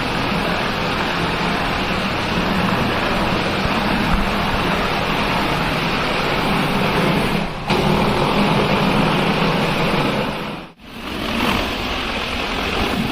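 A machine running steadily with a loud, even rushing noise and a low hum underneath. It breaks off briefly twice, once past the middle and again near the end.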